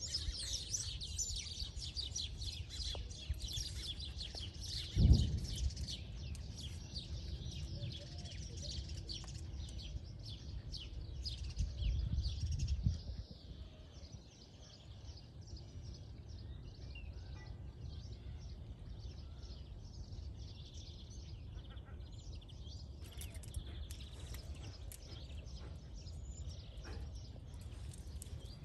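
Many small birds chirping busily, dense in the first half and thinning out later, over a low background rumble. A single short thump about five seconds in is the loudest sound.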